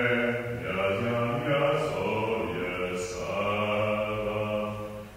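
A man's voice singing slow, long-held notes, unaccompanied. The voice breaks off briefly at the very end.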